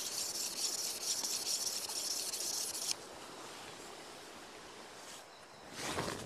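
Rainforest insects buzzing in a steady high hiss, which cuts off abruptly about three seconds in, leaving quieter forest ambience; a short rustle comes near the end.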